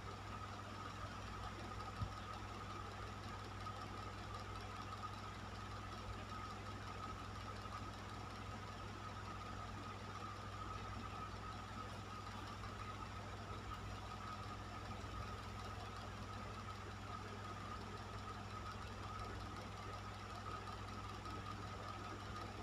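Electric fan running steadily: a low hum and a steady higher tone over a soft, even rush of air, with one small click about two seconds in.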